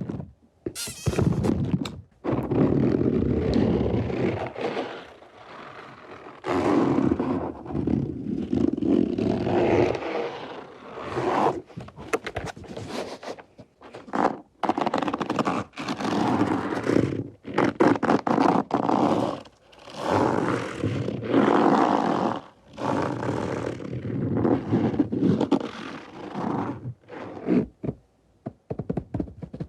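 ASMR trigger sounds made right at the microphone: irregular scraping and rubbing in uneven bursts of a second or two, with short gaps between them.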